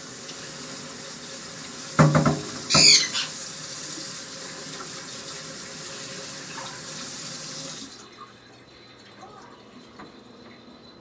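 Kitchen sink tap running, water splashing into the sink, turned off abruptly about eight seconds in. Two loud clanks come about two and three seconds in, the second one ringing.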